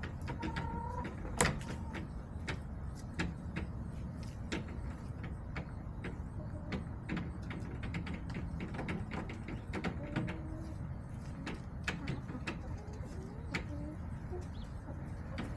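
Backyard chickens making many sharp, irregular clicks and taps, with the loudest knock about a second and a half in, and a few short soft clucks. A low steady rumble sits underneath.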